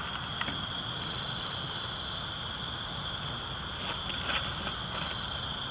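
Wood fire burning, lit with a cooking-oil-soaked paper napkin: a soft steady crackle with a few faint pops.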